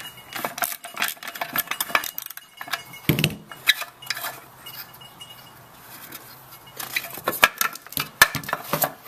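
Metallic clicking and clinking as a 7/16 socket wrench turns out the bolts holding a small engine's sheet-steel muffler. There is a dull thump about three seconds in, then more clinks near the end as the loosened muffler comes off.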